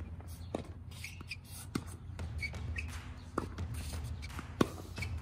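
Tennis balls being struck and bouncing during a baseline rally on an outdoor hard court: sharp pops roughly every second or so, the loudest near the end, over a steady low rumble.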